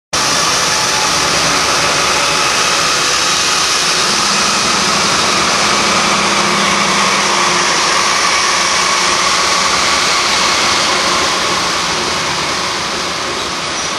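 Norfolk Southern freight train passing at close range: its lead diesel locomotives running loud and steady with wheel and rail noise. About eleven seconds in the sound eases a little as the locomotives go by and the freight cars roll past.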